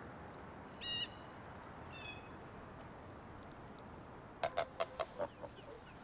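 Chickens clucking in a quick run of sharp clucks starting about four and a half seconds in, over a steady outdoor hush. Two short bird calls come in the first couple of seconds.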